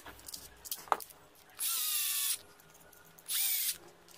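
Small electric screwdriver running in two short bursts, about a second and a half in and again past three seconds, driving the screws that close up a new battery-pack case. Each burst winds down as it stops, and there is a sharp click just before the first.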